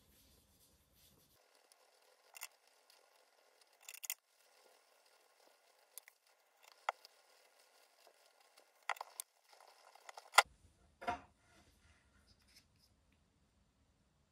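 Flannel cloth rubbing over the waxed toe of a leather dress shoe during mirror-shine polishing: quiet, intermittent rubbing with a few sharp handling clicks, the loudest about ten seconds in.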